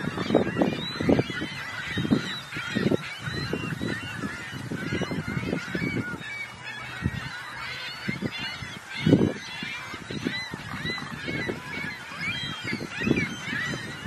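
A flock of gulls calling all the time, with many short, overlapping cries. Under them are irregular low thumping rumbles, the loudest about nine seconds in.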